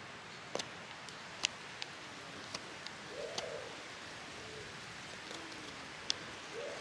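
Mora 510 carbon-steel knife carving a wooden spoon: a run of short, sharp clicks at irregular intervals as the blade cuts through the wood. Low cooing bird calls sound in the background from about halfway through.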